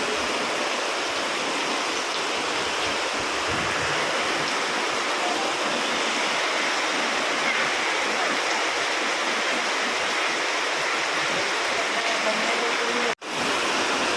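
Heavy rain falling steadily, an even, loud hiss that cuts out for a moment near the end.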